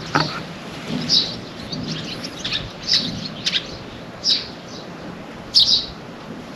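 Small birds chirping outdoors: short high chirps repeating every half second to a second, over a steady background hum.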